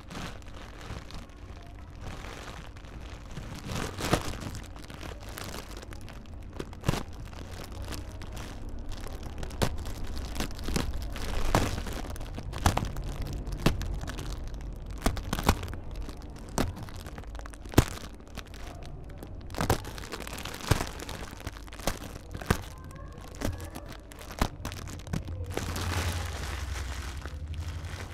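Garlic bulb being pulled apart by hand into cloves: irregular dry cracks and crinkles as cloves snap off and the papery skin rubs, over a low steady hum.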